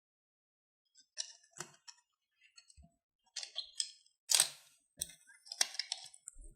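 Irregular clicks, rustles and scrapes of a strip of 35mm film and a developing-tank reel being handled, the loudest about four seconds in.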